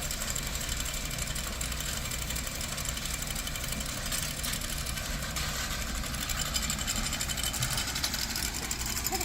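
Tractor engine running steadily while pulling a small square baler, with the baler's mechanism clattering along.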